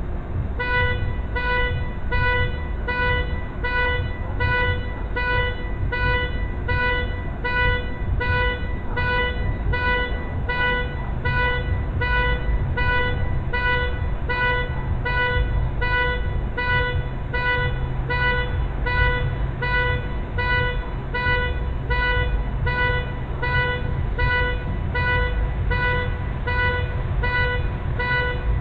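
Electronic warning beeper sounding about one and a half times a second over the low rumble of an idling vehicle; a steadier low hum sets in about eleven seconds in.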